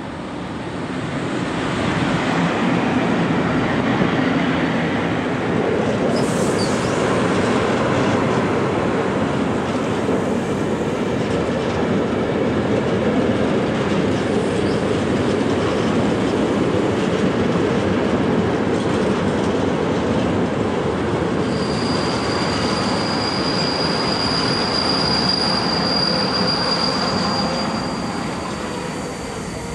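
Freight train of open coal wagons rolling past behind an electric locomotive: a loud, steady rumble of wheels on the track that builds over the first couple of seconds. About two-thirds of the way through, a steady high-pitched squeal joins in and holds while the wagons keep passing, easing off near the end.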